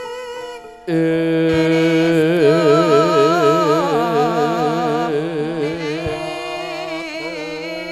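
Javanese gamelan music for a tayub dance, amplified through a PA: about a second in, it gets suddenly louder as a woman's sung vocal line comes in over held tones, singing with a wide, regular vibrato through the middle.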